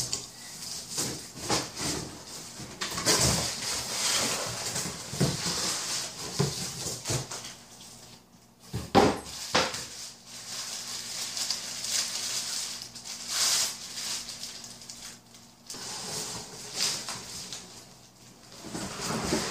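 Cardboard box flaps and packing rustling and scraping as a boxed electric snow thrower is unpacked by hand, with irregular knocks and taps from the parts being handled, the loudest knock about nine seconds in.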